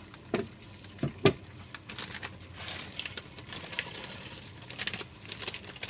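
Plastic instant-ramen packet crinkling and rustling as it is handled and shaken, with a few sharp knocks about a second in.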